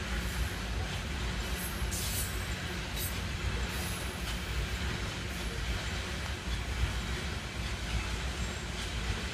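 Freight train rolling past on the rails with a steady low rumble, with a few brief high-pitched squeaks and rattles in the first few seconds.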